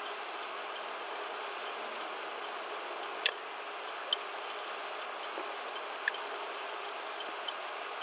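Steady low hiss of room tone with a few small clicks, the sharpest about three seconds in.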